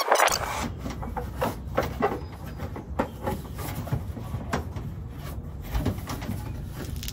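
Work noise from parts being handled: a run of light knocks, clicks and rustles at irregular intervals.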